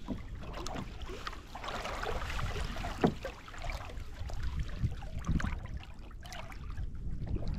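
Sea water lapping and trickling against a plastic sit-on-top fishing kayak, with scattered small clicks and rustles of fishing tackle and a mesh bag being handled, and one sharp knock about three seconds in.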